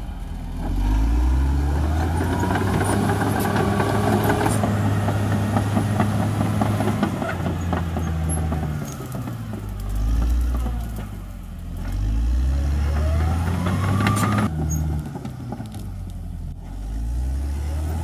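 Caterpillar D6R XL bulldozer's diesel engine working under load, its pitch rising and falling several times as the revs go up and down, with scattered metallic clanks.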